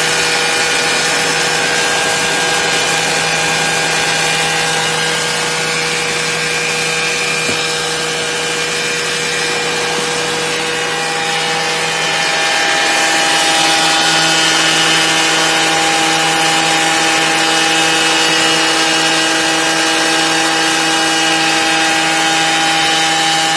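Tractor-mounted lavender harvester running with a steady mechanical whine over a rattling hiss. Its tone shifts and it gets a little louder about halfway through.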